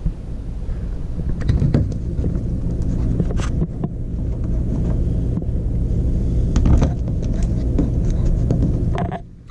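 Scattered clicks and knocks as a wall light switch and its plastic housing are pushed back into place in an RV wall, over a steady low rumble.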